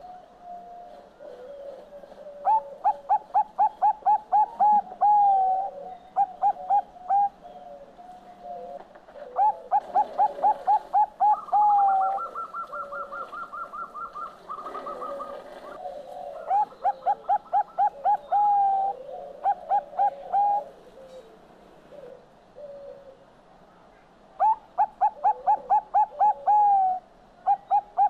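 Zebra dove (perkutut Bangkok) singing: four song phrases, each a quick run of staccato coos, most followed by a short tag of a few notes. Softer coos sound in between, and a faster, higher run of notes comes near the middle.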